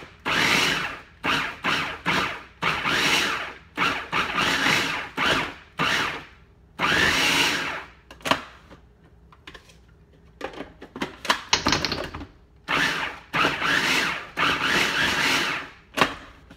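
Food processor with an S blade pulsing kale leaves: short runs of the motor and chopping blade, one after another, with a lull of a few seconds in the middle.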